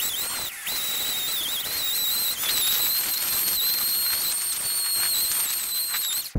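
Chainsaw running at high revs with a high-pitched whine. The pitch dips briefly a few times in the first two seconds as the saw is loaded, then holds steady.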